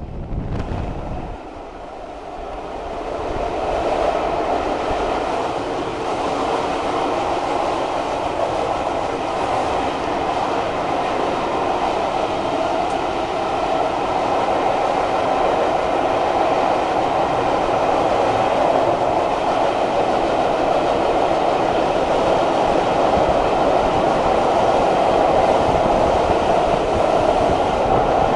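Railway carriage running along the line, a steady noise of wheels on rails heard from inside the coach, no longer buffeted by wind on the microphone. It is quieter for the first couple of seconds, then holds steady.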